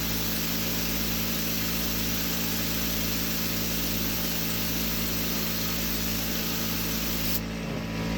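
A 10-inch Tesla disc turbine running at speed on low-speed agricultural hex-bore bearings that drag heavily. It makes a steady machine hum with several low tones under a broad hiss. The high hiss cuts off abruptly near the end while the hum continues.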